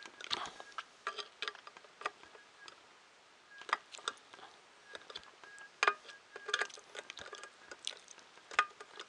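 Screwdriver turning a screw into a 3D printer's metal frame plate: irregular small metallic clicks and scrapes, with a few sharper clicks.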